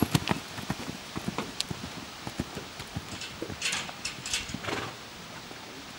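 Horse's hooves cantering on a sand arena: a quick run of dull hoofbeats, loud at first and fading as the horse draws away. A few short rushes of noise come about four seconds in.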